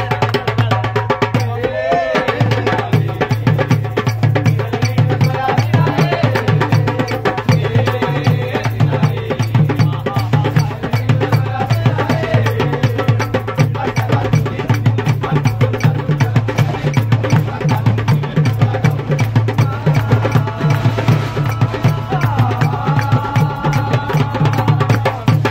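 Hand drums, among them a small rope-laced double-headed drum, beaten by hand in a fast, steady rhythm, with men singing along over them.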